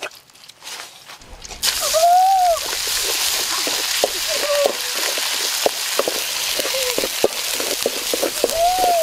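Red chili paste hitting hot oil in a wok and sizzling loudly, starting about a second and a half in, while a spatula stirs it with irregular knocks and scrapes against the pan. A couple of short squeals rise and fall over the sizzle.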